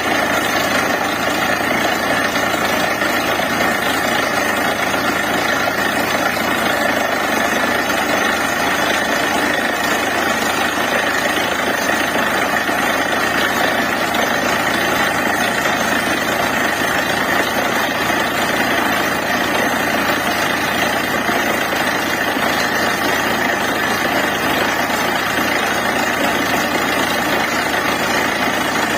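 Borewell drilling rig running steadily, its engine and drilling noise loud and unbroken.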